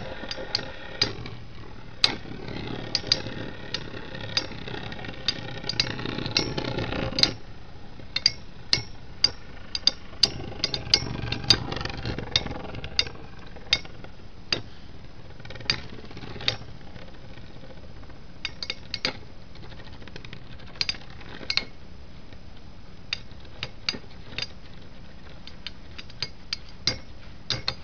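Two metal-wheeled Beyblade spinning tops whirring as they spin in a battle stadium, with many sharp metallic clicks as they clash. The clashes come thickest in the middle and then thin out. The steady spinning noise is louder for the first several seconds and drops off about seven seconds in.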